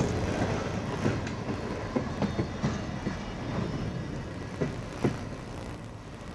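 Freight train cars rolling past, their wheels clacking irregularly over the rail joints under a steady rumble, the sound fading toward the end.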